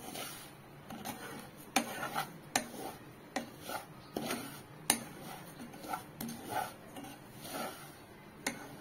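A silicone spatula stirs and scrapes semolina roasting in ghee in a pan. It makes repeated soft scrapes about once a second, with a few sharper knocks against the pan.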